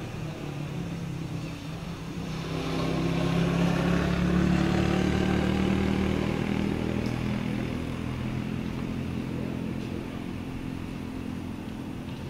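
A motor vehicle engine running steadily as it passes by. It grows louder over the first few seconds, is loudest near the middle, then slowly fades.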